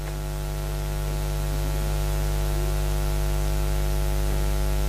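Steady electrical mains hum with its overtones, under a constant hiss, getting slightly louder through the pause.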